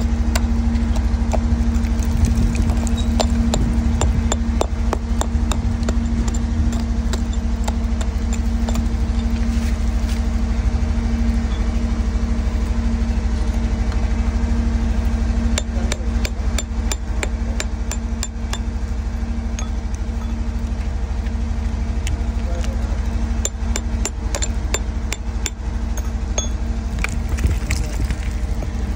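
A steel rock pick striking and chipping hard lava rock, a series of sharp metallic taps in bunches with short pauses between them. A steady low hum runs underneath.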